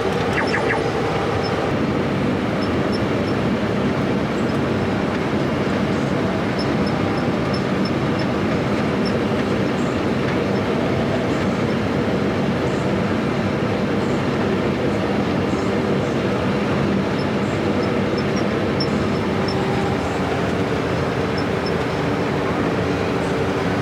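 New Holland combine harvester running steadily while harvesting oats: an even mechanical drone of engine and threshing machinery, heard from inside the cab.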